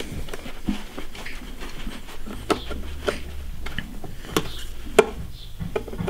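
Scattered sharp clicks and light knocks, about five of them, as the metal RAM access cover on the underside of an iMac is handled and fitted back into place.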